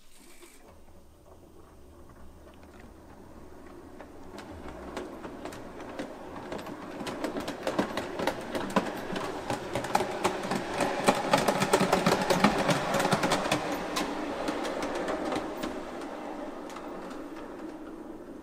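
Gauge 1 brass model steam locomotive (KM1 class 18.2, 18 201) running past on its track: a dense run of sharp clicks from the wheels over the rail joints, over the hum of the drive. It grows louder as it approaches, is loudest about two thirds of the way in, then fades as it moves away.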